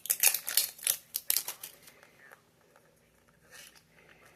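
Plastic packaging being crinkled and pulled open while unwrapping a mini figure: a quick run of sharp crackles in the first two seconds, then a softer rustle.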